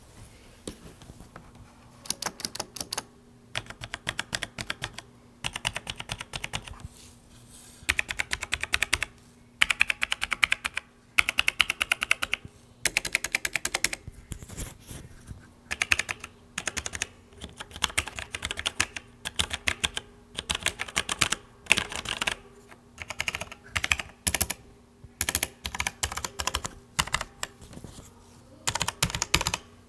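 Typing on a Logitech G613 mechanical keyboard's Romer-G tactile switches, key presses coming in quick runs with short pauses between. The keys are not clicky, lacking the sharp click of a typical blue switch. Picked up with a clip-on microphone held right over the keys.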